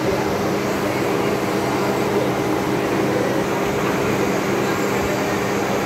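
Machine-shop machinery running with a steady, even hum.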